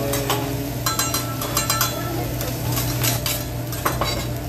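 Metal spatulas clanking and scraping on a hibachi's steel griddle as fried rice is worked, with sharp ringing clacks about a second in, near two seconds, and again around three and four seconds, over a steady low hum.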